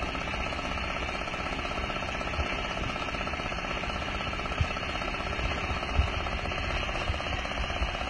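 Small engine driving a concrete mixer, running steadily, with a couple of low thumps about halfway through.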